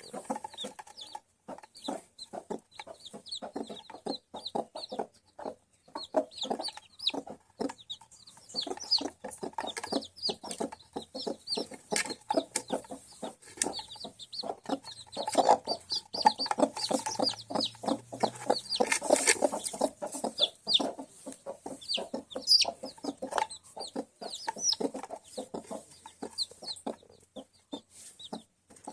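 Mother hens clucking continually, with newly hatched chicks peeping in many short, high notes over them.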